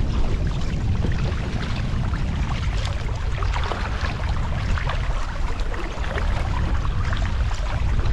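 Wind buffeting the camera microphone in a steady low rumble, over water splashing and lapping as a kayak paddle dips on alternate sides on choppy water.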